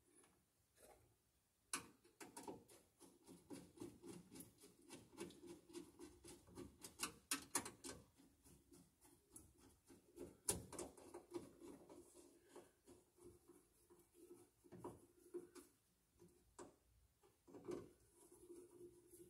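Faint, irregular clicks and scrapes of a screwdriver and cable being worked against a metal electrical subpanel box.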